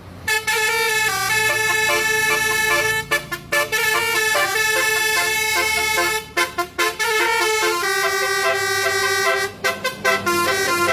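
Basuri 'telolet' multi-tone bus horn playing a tune: a run of loud, steady honked notes that step up and down in pitch, with short breaks about 3, 6 and 10 seconds in.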